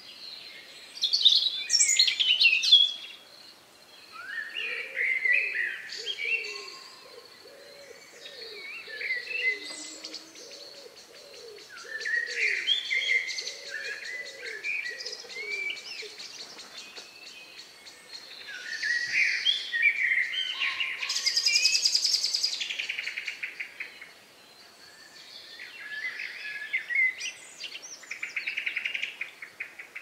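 Several birds singing at dusk, phrases of varied whistles and chirps starting and stopping throughout. A low call is repeated about once a second through the first half, and a dense buzzy trill stands out a little past the middle.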